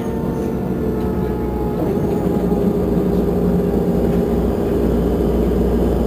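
Irisbus Crossway bus engine idling steadily while the bus stands still, a constant low hum whose pitch dips slightly about two seconds in.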